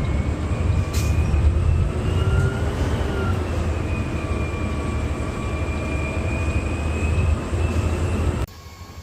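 Garbage truck running while driving: steady low engine rumble with a drivetrain whine that rises slowly and then eases back down. The sound drops away suddenly near the end.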